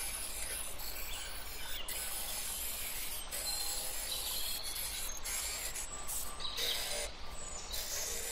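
Stained-glass grinder's diamond bit grinding the edge of a glass piece: a steady motor hum under a gritty, high scraping that breaks off briefly several times.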